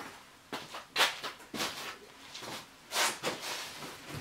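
Cardboard boxes and plastic wrapping being handled and shifted: a series of rustles, scrapes and light knocks, the loudest about a second in and again about three seconds in.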